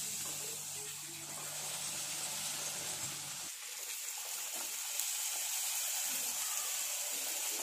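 Puri deep-frying in hot oil in a kadai: a steady sizzle and bubbling as the dough puffs up. A low hum underneath stops about three and a half seconds in.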